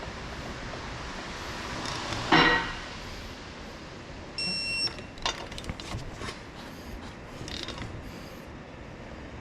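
Metal tools and parts being handled in a workshop during a brake job: one loud clank about two seconds in and scattered clicks, with a short electronic beep about four and a half seconds in.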